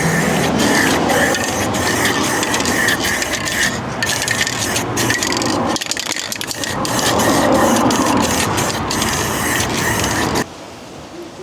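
Rhythmic rasping of sandpaper worked back and forth over filler and paint on a van's steel body panel, about two strokes a second, stopping abruptly near the end.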